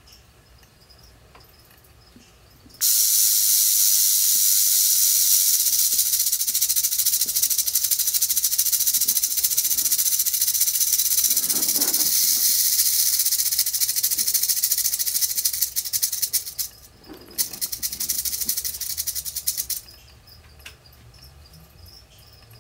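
Prairie rattlesnake shaking its tail rattle, a continuous fast dry buzz of the interlocking rattle segments given as a defensive warning. It starts abruptly about three seconds in, falters briefly about sixteen seconds in, resumes, and stops about twenty seconds in.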